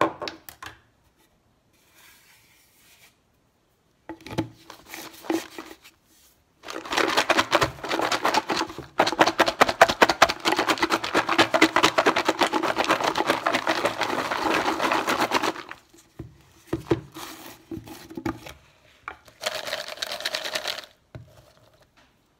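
Crisp fried pasta pieces rattling inside a closed plastic tub as it is shaken hard for about nine seconds to coat them in spice powder. Shorter knocks and plastic clatter come before and after, as the lid is handled.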